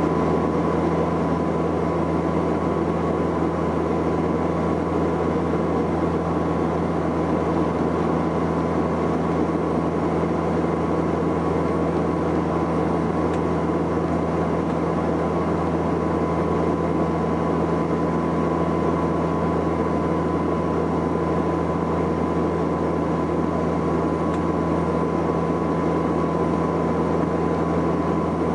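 Saab 340B's twin General Electric CT7 turboprops and propellers running, heard inside the cabin from a window seat beside the engine. A steady drone with a low propeller hum and a thin high tone over a constant rush of air.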